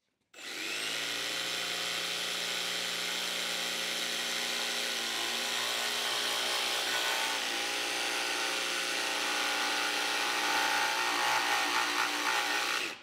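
Milwaukee cordless jigsaw, orbital action off, cutting a notch in a white oak stair riser: one continuous steady cut that starts suddenly and stops suddenly near the end.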